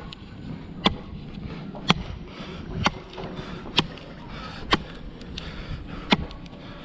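Chopping blows into wood, six sharp strikes at an even pace of about one a second, each with a short ring.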